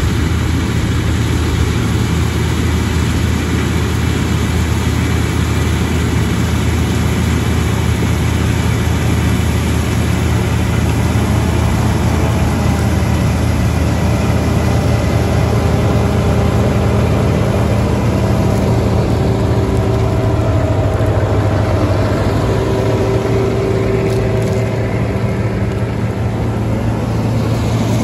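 Diesel engines of a New Holland tractor and a Claas Tucano combine harvester running steadily at close range, with a deep hum. From about halfway through, a few faint steady whines come in over the engines.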